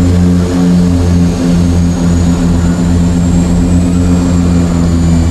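Propeller plane's engines running steadily, heard from inside the cockpit on approach: a loud hum of several low tones with a faint high whine above it.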